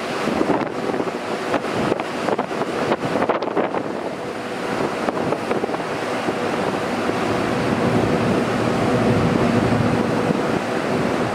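Wind buffeting the camera's microphone on an open deck, with irregular gusts in the first few seconds, then a steadier rush. Under it a faint steady hum, which grows somewhat louder later on.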